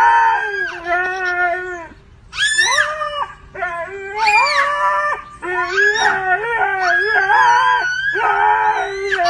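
Dog howling, a string of about six long cries that slide up and down in pitch with short breaks between them.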